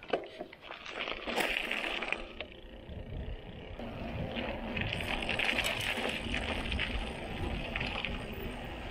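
Montra Rock 2.1 mountain bike setting off on a rough dirt trail: a few sharp clicks and knocks at first, then a steady crunch of tyres on gravel with the frame and chain rattling.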